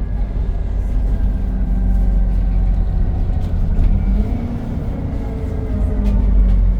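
ADL Enviro 400 Trident double-decker bus with its engine and cooling fan running: a steady low rumble with a whirring tone that rises and falls a few seconds in.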